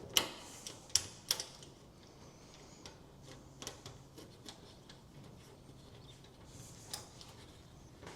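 Metal clicks and light clinks of nuts and bolts being fitted by hand to a steel bonnet clamp: three sharp clicks in the first second and a half, then lighter, irregular ticks.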